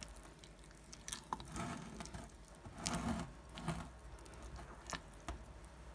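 Spatula stirring and folding thick semolina cake batter in a glass bowl: faint wet squelches with a few sharp clicks of the spatula against the glass.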